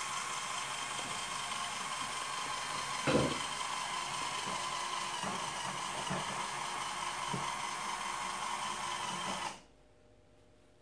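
Lego Power Functions electric motor and gearing whirring with a steady whine as the self-propelled lift climbs its toothed gear racks, with a thump about three seconds in and a few light clicks. The whirring cuts off suddenly near the end.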